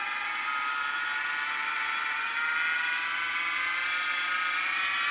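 Little Machine Shop 3990 HiTorque mini mill's 500 W spindle motor and drive running, its whine rising steadily in pitch and growing a little louder as the spindle speed is turned up from about 1,100 to 1,600 RPM.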